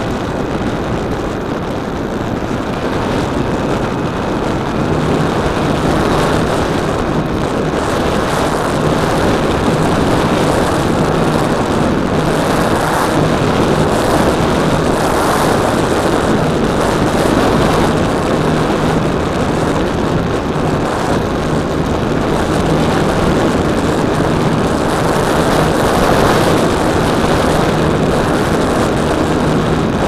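Onboard audio from an E-flite Apprentice electric RC trainer plane in flight: heavy wind rush over the microphone. The propeller adds a low steady hum from about five seconds in.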